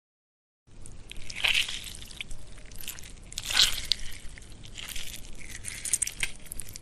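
Sci-fi sound effect: a crackling, hissing noise that starts a moment in, swells and fades three or four times, and cuts off abruptly at the end.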